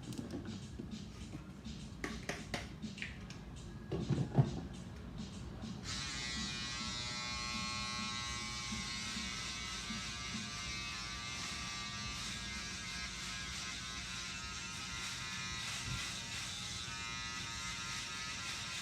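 A few scattered clicks and a knock, then about six seconds in electric hair clippers switch on and run with a steady buzz.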